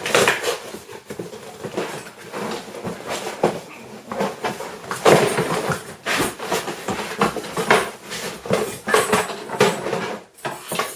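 Cardboard box and packaging scraping, rustling and knocking as a boxed lawnmower is pulled out of it, with sharp knocks near the start and about five seconds in.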